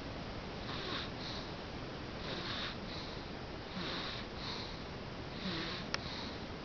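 Snoring of a small sleeper: quick, hissy breaths about every one and a half seconds, each a longer snore followed by a shorter one. One sharp click near the end.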